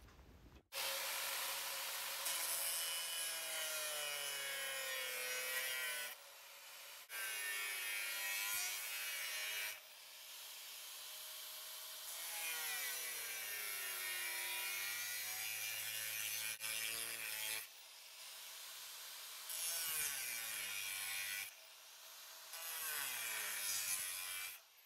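Angle grinder with a 1 mm thick slitting wheel cutting through 1.6 mm stainless steel sheet. It starts about a second in and works in several cuts with short breaks between them. The motor's note dips as the disc bites and recovers between cuts.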